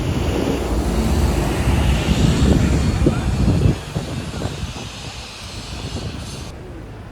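Street traffic noise: a heavy vehicle's engine rumbling close by, loud for the first few seconds and then dropping off about four seconds in.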